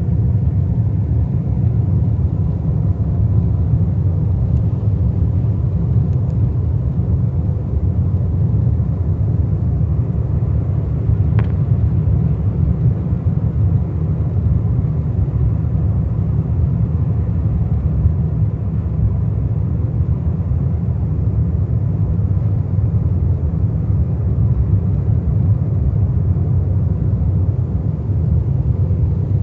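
Steady low rumble of an airliner's cabin, engine and airflow noise heard from a seat inside, with a faint steady hum above it. One brief click about eleven seconds in.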